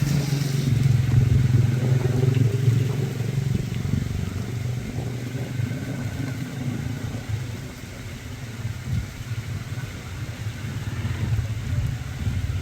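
Strong typhoon wind gusting against the microphone: a deep, uneven rumble that swells and eases, dipping a little past the middle and building again toward the end.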